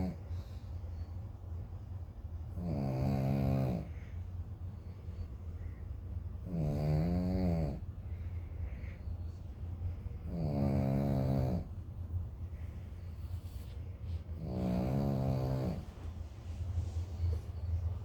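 Pet dog snoring in its sleep: four long snores about four seconds apart, each a wavering pitched tone, over a steady low hum.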